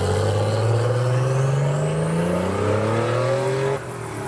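Classic Porsche 911 Turbo's air-cooled flat-six accelerating hard away, its engine note rising steadily in pitch for nearly four seconds. The sound then falls off abruptly near the end.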